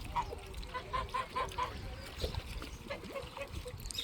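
Farm birds calling: a quick run of about five short calls about a second in, then scattered fainter calls.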